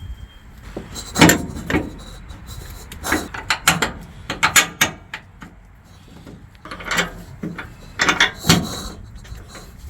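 Irregular metal clanks and knocks as air suspension bracket parts and tools are handled and fitted to the truck frame, in quick clusters of several strikes with short gaps between.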